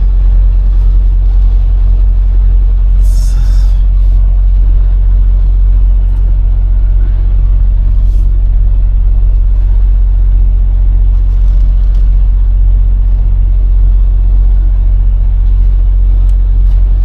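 Semi truck's diesel engine running with a steady low rumble, heard from inside the cab. A short hiss of air cuts in about three seconds in.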